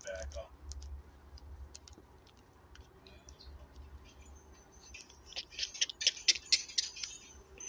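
Rapid small clicks and taps, sparse at first, then a dense flurry of them from about five seconds in.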